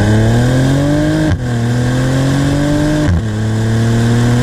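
Maserati Levante's twin-turbo V6 exhaust under hard acceleration, heard from under the rear bumper: the note climbs steadily, drops sharply with an upshift about a second and a half in, and again about three seconds in, then keeps climbing.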